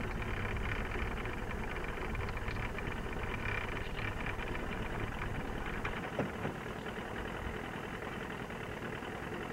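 Motorboat engine idling with a steady low hum; the deepest part of the hum fades about six seconds in.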